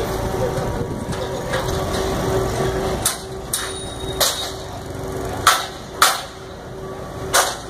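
About six hammer blows on the steel frame of a Ferris wheel being dismantled. They start about three seconds in, come at uneven spacing, and each has a short metallic ring. Under them runs a steady machine hum.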